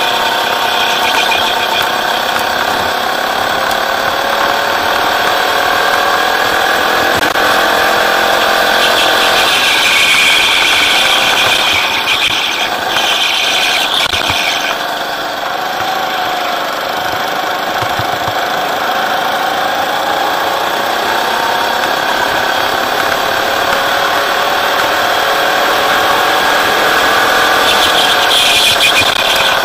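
Rental go-kart engine heard onboard at speed, its pitch climbing on the straights and falling as the driver lifts for the corners, with a dip about halfway through before it climbs again.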